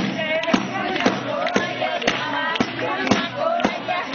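A group of women singing Punjabi jago boliyan over sharp, evenly spaced strikes about twice a second, a stick beating a chhaj (woven winnowing basket) to keep time.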